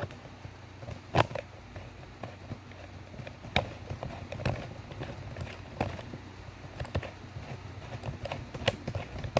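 Hampton Bay Littleton ceiling fan running on high speed in reverse: a low steady hum. Irregular sharp clicks and knocks come over it every second or two.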